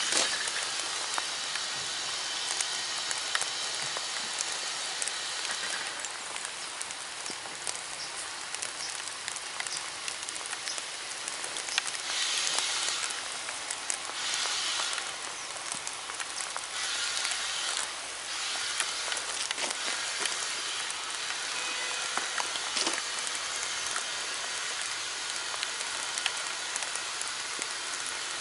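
Steady rain falling, with scattered drop ticks, and the hiss of a steam train drawing away, stronger in several stretches a little past halfway.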